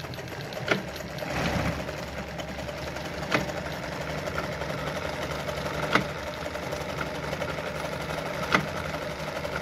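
Brother Pacesetter ZZ2-B702F sewing machine running steadily, stitching a decorative pattern stitch through denim, with a sharp click about every two and a half seconds.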